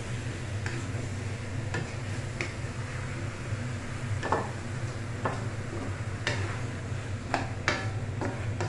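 Wooden spatula scraping and knocking against an aluminium wok at irregular intervals as chicken and green papaya are stirred and sautéed, over a steady low hum.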